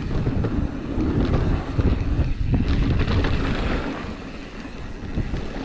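Wind buffeting the microphone over the rumble and rattle of a Pivot Switchblade mountain bike rolling fast down a dirt trail, with scattered knocks from the ground. It eases off about four seconds in.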